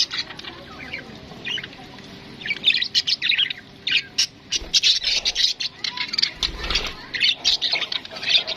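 Parrots squawking and chirping in quick, short calls, sparse at first and coming thick and fast from about two and a half seconds in.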